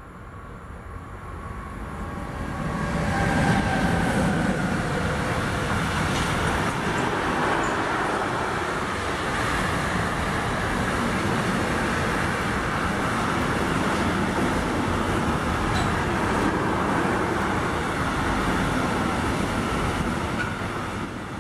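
Class 189 electric locomotive hauling an intermodal freight train of container and tank-container wagons, passing close by. The noise builds over the first three seconds or so as the locomotive comes up. It then settles into a steady rumble of wagon wheels on the rails as the wagons roll past.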